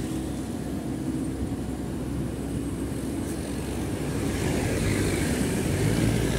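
Komatsu PC78US excavator's diesel engine running under load as the boom swings away from the dump truck, a steady low drone that grows somewhat louder in the second half.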